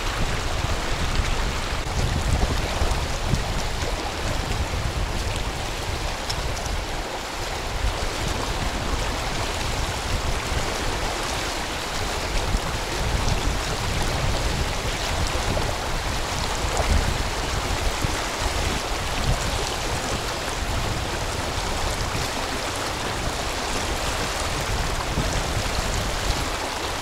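A fast mountain river rushing steadily, a continuous roar of water with a strong low rumble.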